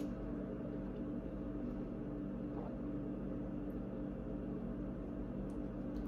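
Steady low hum of room tone, with no distinct sounds of the drinking seen.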